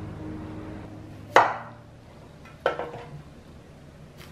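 Chef's knife cutting through a Korean zucchini and knocking onto a bamboo cutting board: three sharp chops, about a second in, near three seconds in, and at the very end.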